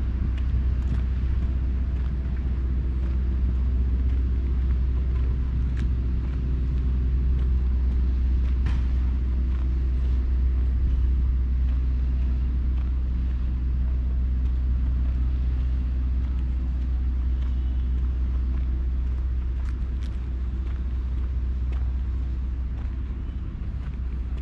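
Street ambience dominated by a steady low rumble of road traffic, with a few faint ticks scattered through it.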